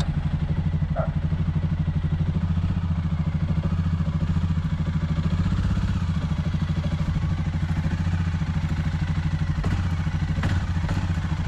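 An ATV engine idling steadily with an even, low throb.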